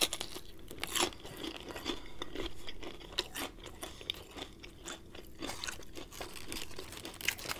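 Chewing a mouthful of crispy-breaded Popeyes fried chicken: many small, irregular crunches of the fried coating, with a louder crunch about a second in.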